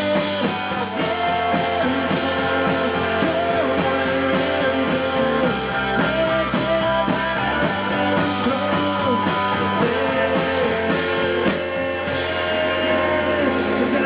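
Rock music played by a band, with guitar prominent, running steadily throughout.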